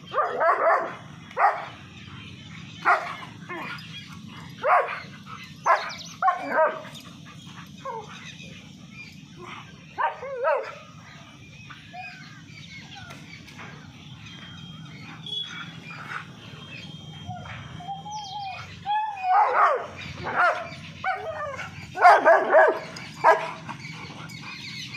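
Dogs barking in short bursts as a German shepherd and a Labrador scuffle. The barks come in clusters: a run in the first several seconds, a pair around ten seconds in, and another flurry near the end, with quieter stretches between.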